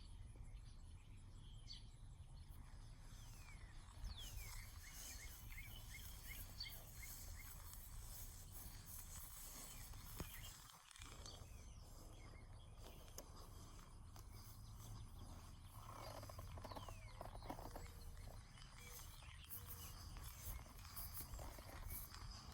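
Faint outdoor ambience with a low rumble, and a bird's run of short falling chirps about four seconds in.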